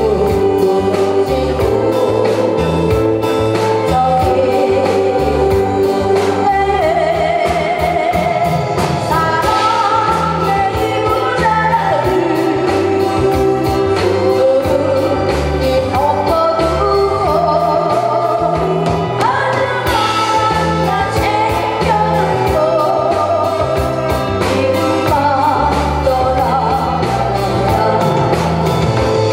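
A woman singing a Korean ballad into a handheld microphone, amplified through a PA, over backing music with a steady beat and bass line.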